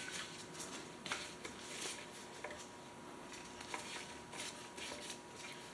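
Faint, scattered small clicks and handling noises of hand tools working the screws on metal machine parts, with a faint steady hum underneath.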